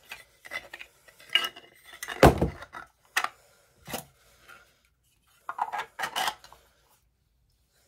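Bath bomb mold pieces being handled and set down on a hard surface: a string of separate clicks and knocks, the loudest about two seconds in and a quick cluster near six seconds.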